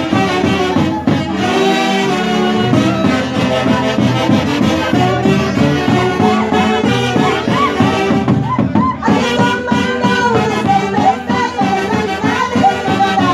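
Live Andean band music played loud: saxophones and clarinets carry the melody over a bass drum. There is a brief pause in the phrase a little past the middle, then the melody comes back in.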